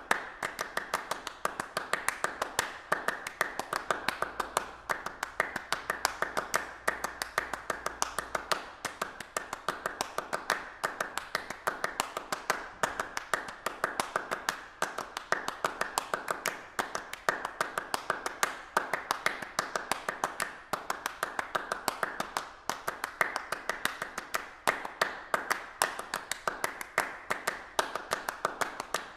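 A dense, steady stream of sharp clicking and tapping, several clicks a second, with louder clicks standing out irregularly among them.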